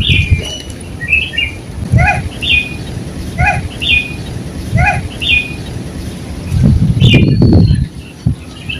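Bird calls repeating at a steady pace: a short high chirp alternating with a lower, fuller call, each coming back about every second and a half. A louder burst of noise comes in about seven seconds in.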